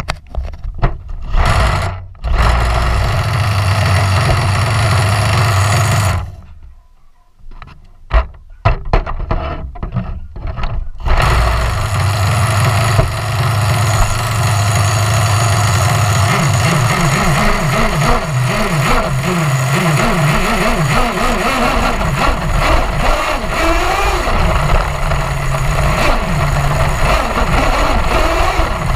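Small nitro engine of an HPI Savage XL RC monster truck catching about two seconds in, running for about four seconds and then dying. After a few short sputters it starts again about eleven seconds in and keeps running, revving up and down in the second half.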